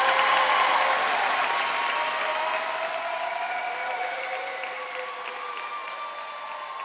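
Concert audience applauding, fading out gradually.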